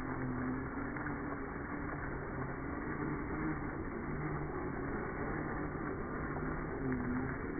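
1/10 scale RC rock crawler's electric motor and geared drivetrain whining as it crawls, the pitch wavering up and down with the throttle, over the scrape of tyres on loose rocky dirt.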